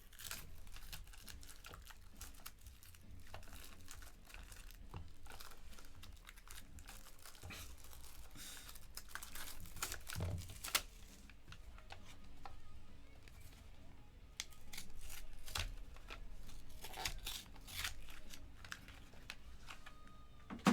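Wrapping being torn and crinkled off a sealed trading-card box, in irregular crackles with scattered small clicks.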